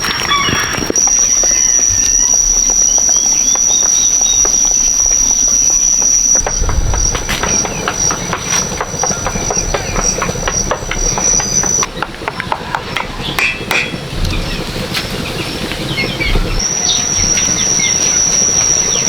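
A steady, high-pitched insect drone, breaking off about two-thirds of the way through and coming back near the end, with scattered clicks and knocks throughout.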